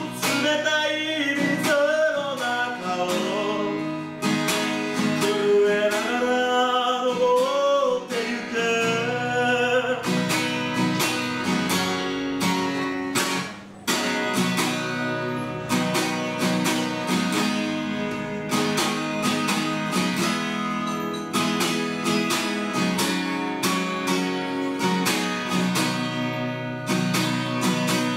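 Steel-string acoustic guitar strummed through a song's instrumental interlude, with a wordless, wavering sung line over it for the first ten seconds or so. The strumming breaks off for a moment about halfway, then carries on.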